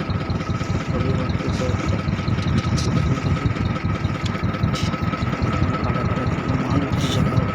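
An engine running steadily at an even speed, with a low rumble and a thin steady whine over it.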